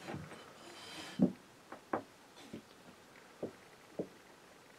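A handful of light, separate taps and knocks from small items being handled and set down, about five in all, with faint rustling in the first second.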